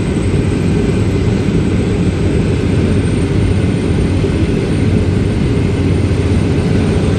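Steady, loud rumbling noise of strong wind and heavy rain, heaviest in the low end, with no let-up.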